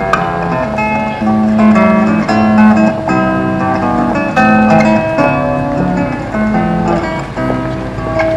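Acoustic guitar music: a run of plucked and strummed notes that changes pitch every fraction of a second.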